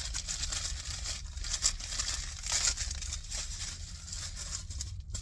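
Packaging crinkling and tearing in the hands as a toy figure is unwrapped and pulled out of its can, in irregular bursts of crackle.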